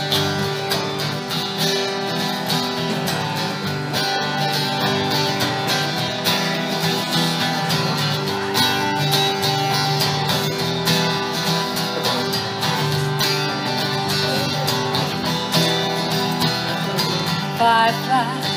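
Instrumental introduction of a folk-country song played live on two steel-string acoustic guitars over a plucked upright double bass. A singing voice comes in near the end.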